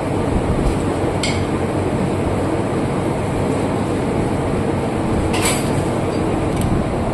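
Steady engine-like drone with three sharp metallic clinks: one about a second in, one past halfway and one near the end.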